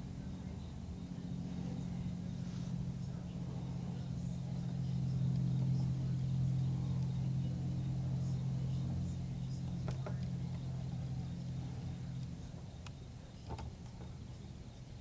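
Low engine hum that swells and then fades away about twelve seconds in, with a few faint clicks near the end.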